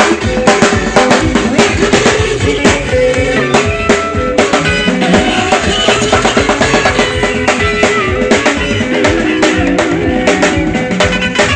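Band music driven by a drum kit, with bass drum and snare hits in a busy, steady beat over sustained bass and chord notes.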